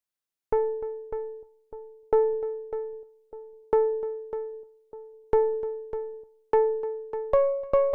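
Background music: short, quickly fading notes repeated on one pitch in an even rhythm, starting about half a second in and moving to a higher note near the end.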